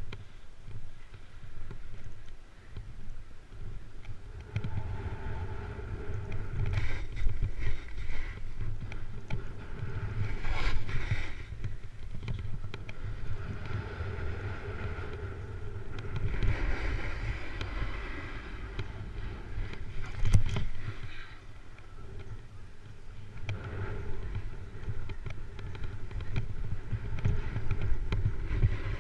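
Wind rumbling on a GoPro's microphone as a snowboard rides downhill, with the board's edge scraping across packed snow in surges on each turn.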